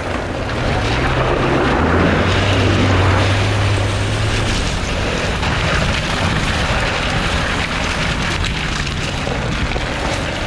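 Fiat Panda 4x4's engine pulling as the car drives over loose riverbed gravel, with the tyres crunching on the stones. The engine note rises about a second in, then holds steady for a few seconds.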